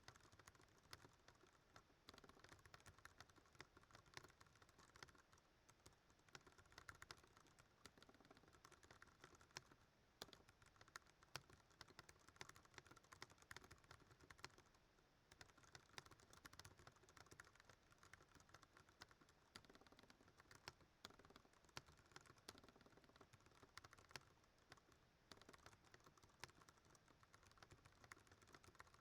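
Fast, continuous typing on a Ducky One 2 Mini mechanical keyboard with Cherry MX Brown switches, at around 100 words a minute. The keystrokes come in a dense, uneven run and sound faint.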